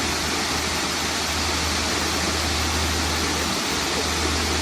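Waterfall: a steady, even rush of falling water with a low rumble underneath.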